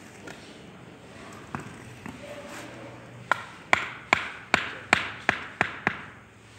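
A hand tool tapping on a wooden pattern piece set in rammed molding sand: eight sharp knocks, each with a short ring, about two and a half a second in the second half.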